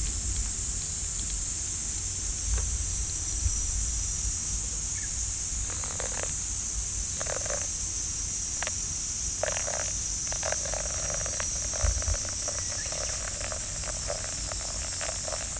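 Steady high-pitched drone of cicadas in summer, with scattered short clicks and crackles joining from about six seconds in and growing denser near the end.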